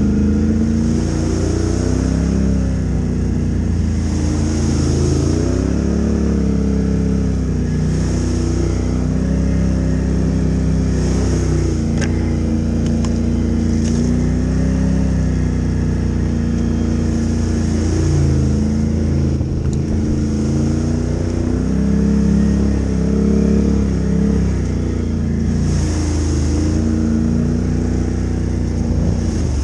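Can-Am ATV engine running under load on a muddy dirt trail, its pitch rising and falling every few seconds as the throttle opens and closes. Two short clicks come about twelve and fourteen seconds in.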